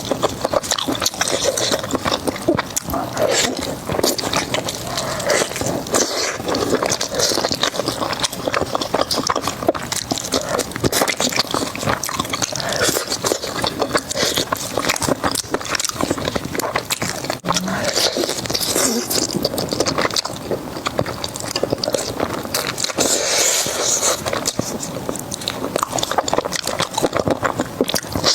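Close-miked eating sounds: steady chewing and crunching of crispy food, a dense run of crackles and wet mouth clicks.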